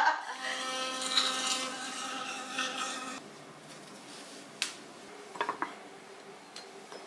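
Electric toothbrush buzzing with a steady hum that stops about three seconds in, followed by a few light clicks and taps.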